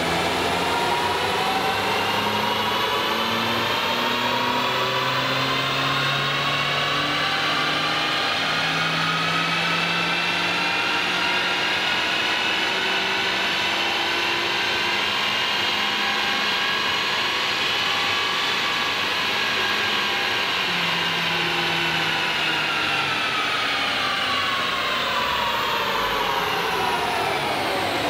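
2022 Honda Civic Si's 1.5-litre turbocharged four-cylinder making a run on a chassis dyno with a Spoon Sports drop-in air filter fitted. A layered whine climbs slowly in pitch for most of the run, then falls away over the last several seconds.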